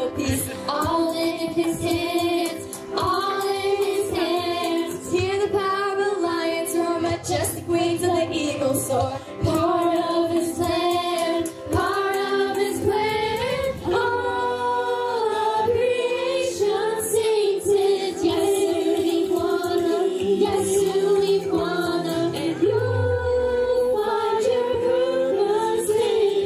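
A musical-theatre cast singing together as a choir over instrumental accompaniment. About twenty seconds in, a low note slides steadily downward.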